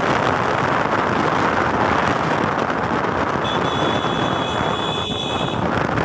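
Wind buffeting the microphone of a riding motorcycle, a loud steady rush. A thin high-pitched tone sounds for about two seconds past the middle.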